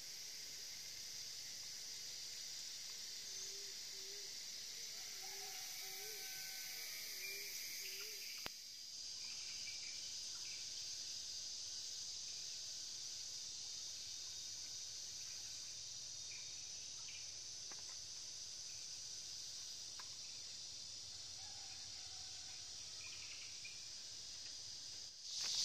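Steady high-pitched drone of an insect chorus, with scattered bird calls over it: a run of short, low, repeated notes in the first few seconds, then occasional chirps and short whistles. The drone dips briefly about a third of the way through.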